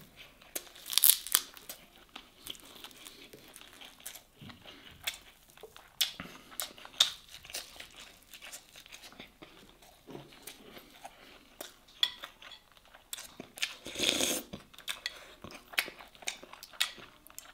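Close-miked eating: fingers pulling apart grilled masgouf fish and rice, then chewing, with many small scattered clicks and mouth noises. About fourteen seconds in there is a louder brief clatter as dishes are handled.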